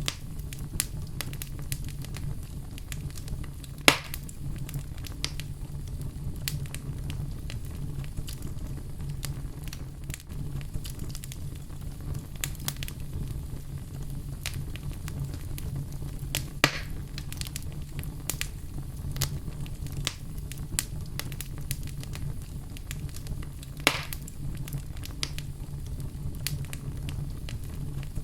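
Wood fire crackling in a fireplace: frequent small irregular snaps and three louder pops, about 4 s in, midway and near the end, over a steady low rumble of the flames.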